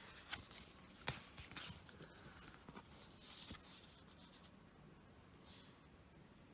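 Faint handling of a paper guidebook: a few light taps and a soft rustle of pages in the first few seconds, then near silence.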